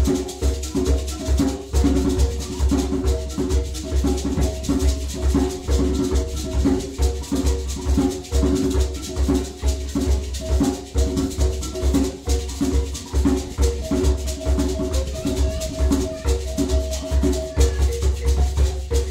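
Shona mbira music: mbira played inside gourd resonators, cycling a repeating pattern of plucked notes, with hosho gourd shakers rattling a steady beat and a hand drum under it.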